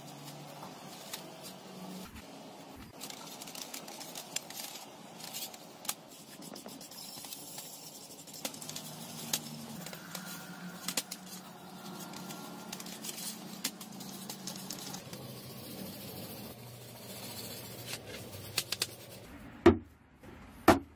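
A brush scrubbing the metal housing parts of an old angle grinder in a wet tray, with scattered scrapes and small clicks over a faint low hum. Near the end come a few loud, short knocks.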